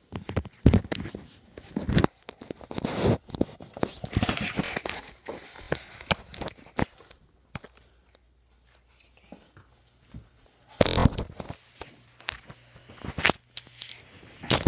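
Irregular rustling, scraping and knocking from a phone being carried and handled, brushing against clothing, with a quiet spell in the middle.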